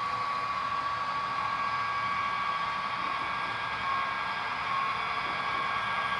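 HO scale model train running on the layout: a steady whirring with a steady high whine from the locomotive's motor.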